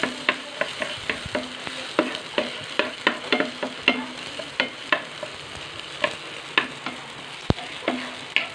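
Wooden spatula stirring onion and tomato sautéing in a nonstick frying pan, with frequent sharp taps and scrapes against the pan over a steady sizzle.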